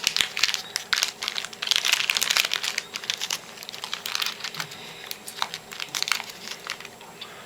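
Foil hockey-card pack wrappers crinkling and rustling as the packs are handled, with quick clicky rustles that are loudest for the first few seconds and then fainter.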